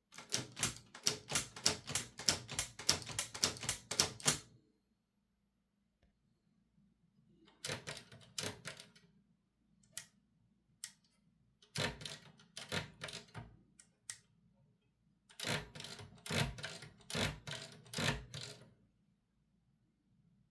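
Olivetti Linea 88 manual typewriter being typed on, its type bars striking the platen in quick clicks. A fast run of about four or five strokes a second opens, then three shorter bursts follow with pauses between them.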